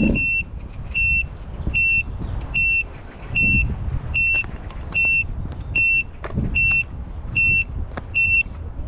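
FPV racing drone's onboard beeper sounding a steady string of short, high beeps, about one every three-quarters of a second, over a low rumbling background.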